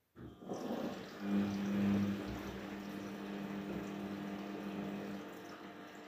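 Daewoo DWD-FT1013 front-loading washing machine starting its rinse: about a quarter second in the drum motor starts with a steady hum, over the sound of water running and sloshing in the drum. The hum drops away about five seconds in while the water sound goes on.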